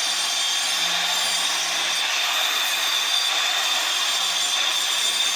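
A small handheld electric power tool running steadily, with a constant thin high whine over its motor noise.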